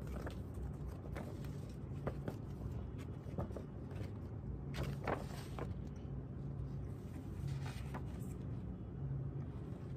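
Paper rustling and crinkling as a folded glossy poster is opened out by hand. The crinkles come in short irregular bursts, the loudest about five seconds in, over a steady low hum.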